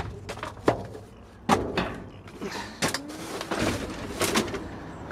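Trash being rummaged through inside a dumpster: five sharp knocks and clatters of cans, bottles and paper being shifted, with rustling in between.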